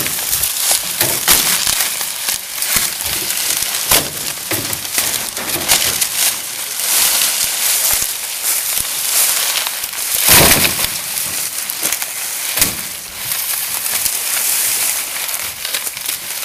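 Cut sugarcane stalks rustling, crackling and knocking together as they are handled and stacked by hand, with a louder crunch about ten seconds in.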